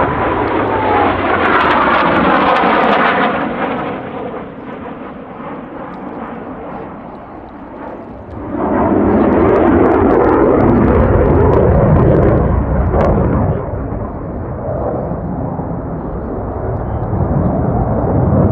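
Twin afterburning turbofan jet engines of a CF-18 Hornet in flight. A falling whine as the jet passes and climbs away, easing off, then the noise swells suddenly and loudly about eight seconds in for several seconds before settling to a lower rumble.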